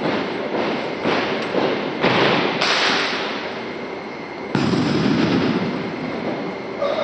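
A drill team's sharp stamps and rifle strikes on a gymnasium floor, ringing on in the hall's echo, with heavier hits about two, two and a half and four and a half seconds in.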